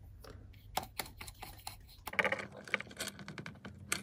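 Light, irregular clicks and scratches: a small N gauge model wagon handled on a cutting mat, and a brush working weathering powder onto the wagons. The scratching gets busier about halfway through.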